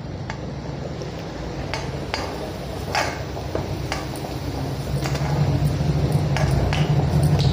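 Koftas sizzling in hot mustard oil in a kadhai, with a wooden spatula knocking and scraping against the pan several times as the fried koftas are lifted out. A low steady hum grows louder from about five seconds in.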